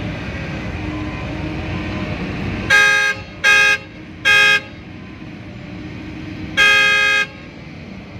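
A vehicle horn at a mine loading site sounds four blasts: three short ones in quick succession, then a longer one about two seconds later. A steady low rumble runs underneath.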